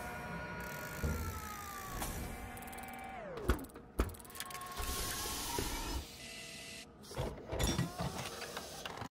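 Layered monster-battle sound effects: several held tones slide down in pitch, with two sharp hits about three and a half and four seconds in and more hits near the end.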